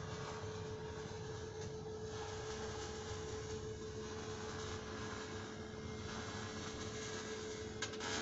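A steady machine hum with a constant mid-pitched tone over an even noise, and a brief click near the end.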